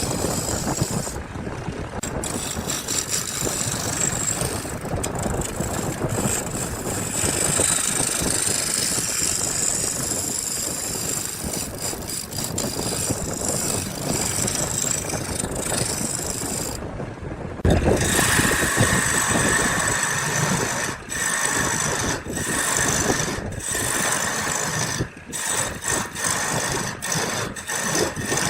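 A woodworking power tool running and working wood, a continuous mechanical grinding noise. About 18 seconds in it turns louder and harsher, then breaks off briefly several times near the end.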